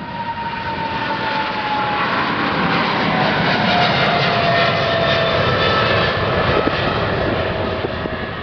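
A jet airliner flying past: steady engine noise with a whine that falls in pitch, swelling to its loudest midway and fading away toward the end.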